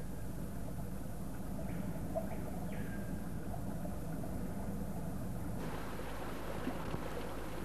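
Steady low hum and hiss of an old film soundtrack, with a few faint, short high chirps in the first half. The hiss turns brighter about five and a half seconds in.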